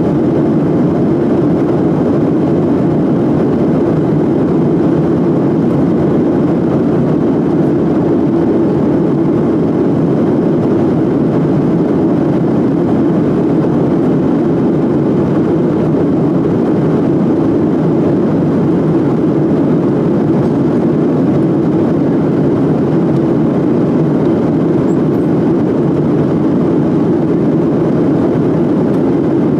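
Steady noise of jet engines and rushing air, heard inside an airliner cabin in flight, unchanging in level.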